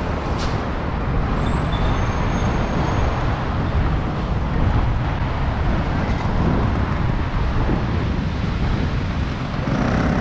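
Steady road traffic noise on a busy city street, with a brief high hiss about half a second in.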